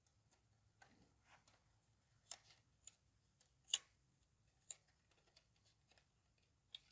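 Near silence with a few faint, scattered clicks and taps as wires are handled against plastic switch plates; the sharpest click comes about halfway through.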